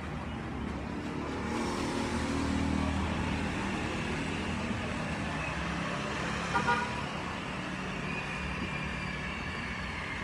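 Steady street traffic noise with a low motor hum, and a short horn toot about six and a half seconds in.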